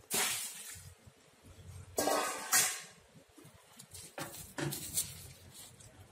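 Close-up mouth noises of a person eating steamed fish: loud chewing and lip-smacking, with a few sharp smacks about two seconds apart.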